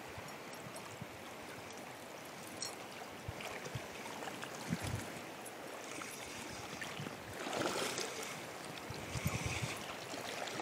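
Steady rush of shallow river water running through a riffle, with a few faint clicks.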